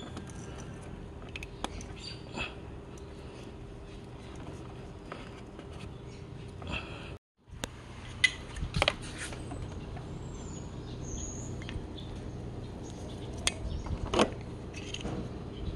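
Scattered clicks and knocks of plastic wiring connectors and body panels being handled on a motorcycle, over a steady low hum; the sharpest clicks come a little past halfway and again near the end.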